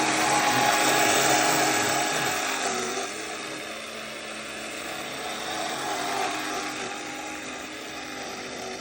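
Electric drive motor and gearbox of a Power Wheels ride-on ATV running with a steady whine. It is loudest for the first three seconds, then eases off a little.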